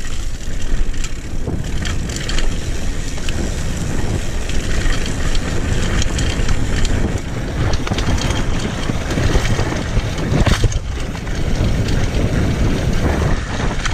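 Wind buffeting a GoPro's microphone as a mountain bike runs fast down a dirt singletrack, with tyre rumble and the rattle and knock of the bike over bumps; one sharp knock about ten and a half seconds in.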